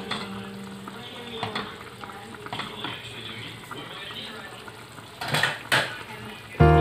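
Metal ladle stirring chicken soup in a stainless steel pot, with small scrapes and clinks of metal on metal, then two sharp, louder clinks against the pot a little past five seconds in.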